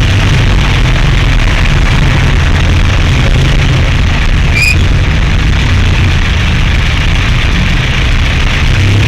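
Steady low engine rumble with road or traffic noise from a motor vehicle. A brief high chirp sounds about halfway through.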